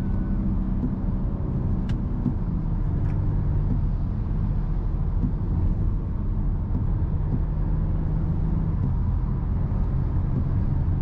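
BMW F30 328i's turbocharged four-cylinder N20 engine running while driving, heard from inside the cabin over road and tyre noise, its pitch holding fairly steady with small shifts.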